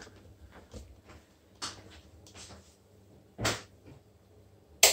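A few separate knocks and clicks of things being handled on a kitchen counter: a soft knock, a louder knock, then a sharp click near the end.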